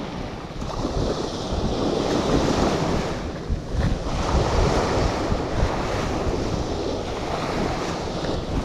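Sea waves washing on the shore, with wind rumbling on the microphone.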